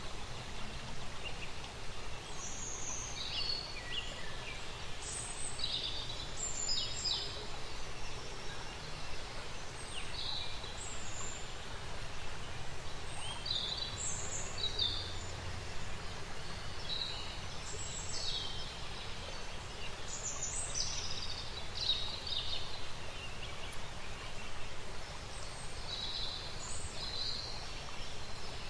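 Nature ambience of small birds chirping and singing in short, scattered calls, over a steady outdoor background hiss.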